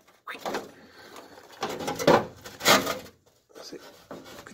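Rusted sheet-metal exhaust heat shield being bent and worked loose by hand, giving a few short scrapes and clatters.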